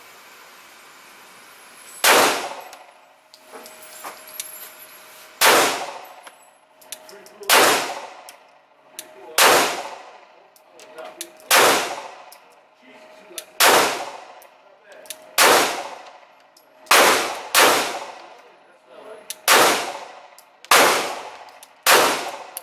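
9mm semi-automatic pistol fired in slow, deliberate single shots, about a dozen, one every one and a half to two seconds, with a quick pair about two-thirds of the way in. Each shot is loud and sharp, with a ringing echo that dies away.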